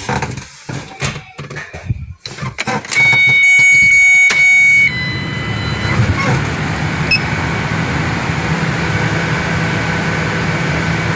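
Ford Ranger 3.0 diesel engine being started: a few knocks, then the starter whining loudly for about two seconds. The engine catches about five seconds in and settles into a steady idle.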